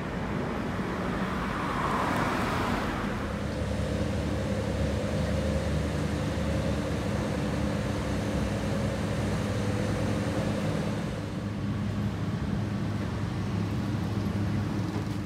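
City road traffic: a car passes by about two seconds in, followed by a steady low engine hum of vehicles on the road.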